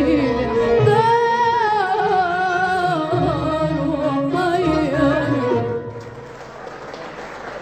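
A woman singing a long, wavering ornamented phrase of a classical Egyptian tarab song with instrumental accompaniment. The music stops about six seconds in and audience applause begins.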